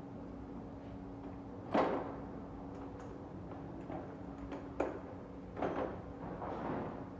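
Several separate knocks and clatters of tools and engine parts being handled, the loudest about two seconds in, over a steady low hum.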